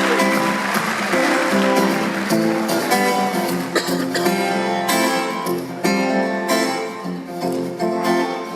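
Acoustic guitar played live, a run of picked and strummed notes.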